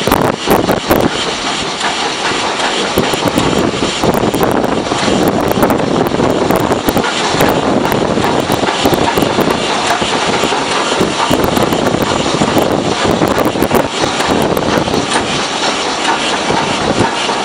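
A steam-hauled passenger train running, heard from a carriage window: the rush and rumble of the train on the track, with wind buffeting the microphone and irregular clatter throughout.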